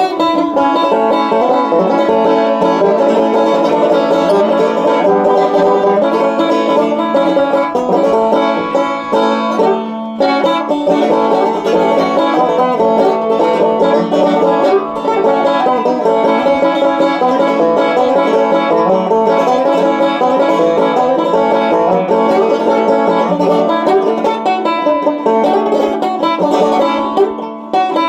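Banjo picking a bluegrass tune, a steady stream of quick plucked notes.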